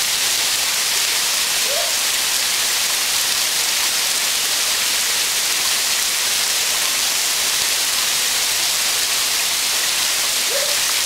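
An 80 m waterfall falling, a steady, even rush of water.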